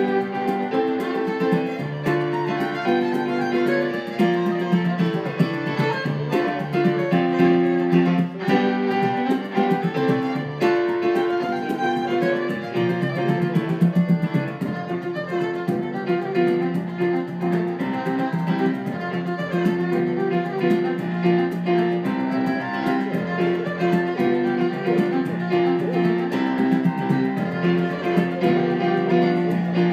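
Fiddle and Yamaha keyboard piano playing a traditional tune in 6/4 time together, the fiddle carrying the melody over the piano's rhythmic chords.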